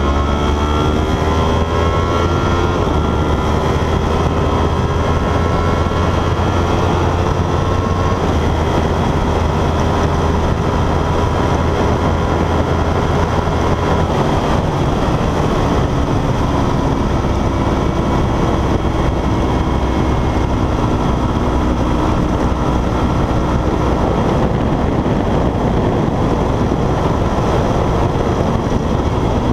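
Motorcycle engine running hard at track speed under heavy wind rush. The engine note climbs in the first couple of seconds, holds steady, then drops to a lower note about halfway through.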